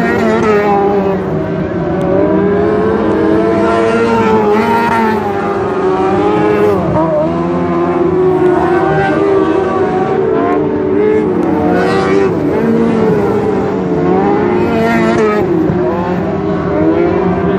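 Several dirt-track race car engines at full racing revs, their pitch climbing and dropping over and over as the cars lift off and power through the turns.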